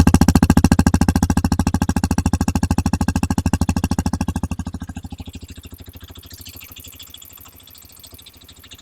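Hero XPulse 210's single-cylinder engine idling, heard at the silencer as a steady, rapid exhaust pulse; it grows much fainter about five seconds in.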